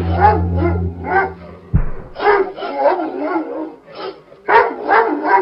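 A dog barking over and over in quick runs of short barks. Under the first barks a low bass drone plays, then cuts off with a thump a little under two seconds in.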